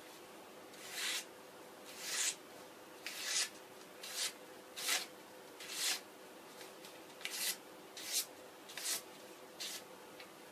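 A razor-sharp, hard-steel kitchen knife slicing through a held sheet of paper in a sharpness test. Each cut gives a quick papery swish, about one a second, roughly a dozen in all, some of them in quick pairs.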